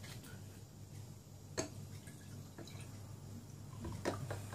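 Plastic juice bottle handled and uncapped, with a few sharp clicks, then orange juice poured from it into a glass near the end, over a steady low hum.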